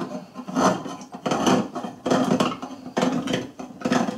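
Hand-cranked can opener cutting around the lid of a can of chicken broth: a short metallic crunch with each turn of the crank, repeating roughly twice a second.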